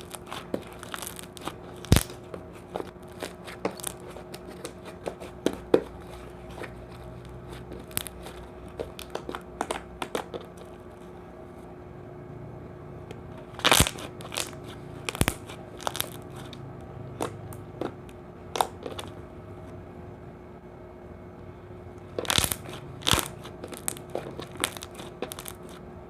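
Slime being squished, pressed and stretched by hand, giving irregular sharp clicks and pops of trapped air, a few of them much louder than the rest.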